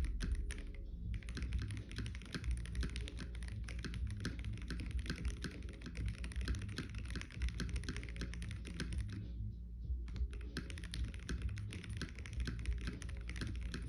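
Fast, continuous typing on an Acid House D60Lite mechanical keyboard with tape mod, Lavender switches spring-swapped to 58g and ePBT keycaps: a dense run of keystroke clacks, briefly pausing twice.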